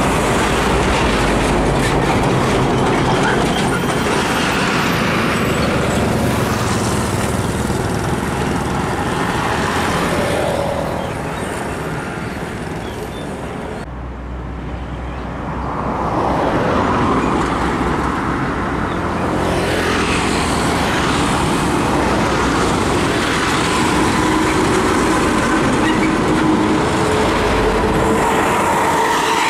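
Heavy diesel trucks and other traffic passing close by on a highway, with engines and tyres running. The sound drops briefly about halfway through, then builds again as more trucks approach.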